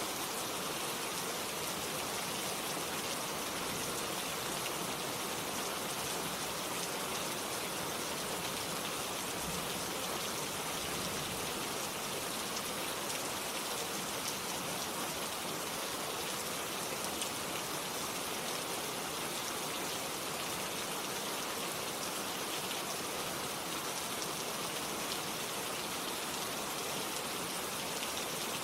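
Steady rainfall, an even hiss of many raindrops with faint scattered drop ticks, unchanging throughout.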